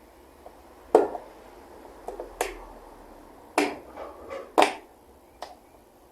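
A handful of sharp clicks and knocks, hard parts being handled and set down, the loudest about a second in and two more near the middle.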